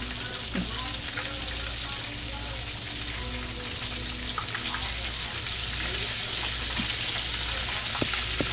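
Breaded chicken breasts shallow-frying in hot oil in a cast-iron skillet: a steady sizzle of bubbling oil, with a few light clicks of a utensil touching the pan.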